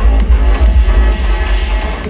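Loud electronic dance music with heavy bass, played over a large outdoor sound system.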